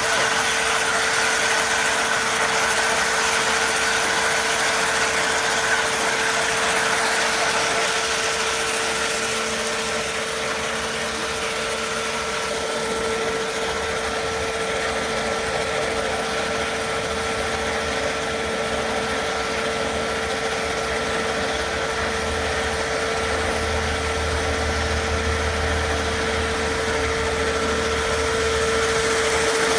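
Dazzini TCI260VH quarry chain saw running steadily, its chain cutting vertically into wet stone, with a constant hum and a higher steady tone. A low rumble grows in from about halfway through and is strongest near the end.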